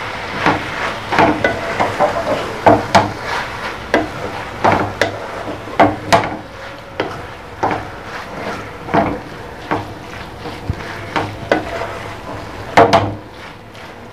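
Wooden spatula stirring chana dal and minced meat in a metal karahi, scraping and knocking against the pan every half second or so over a steady low sizzle of frying. The loudest knock comes near the end.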